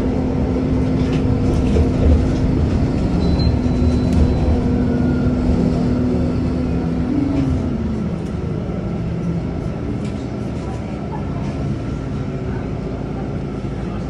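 Bus heard from inside the cabin: low engine and road rumble with a steady drive whine that rises briefly about halfway through, then falls away as the bus slows, leaving a quieter rumble.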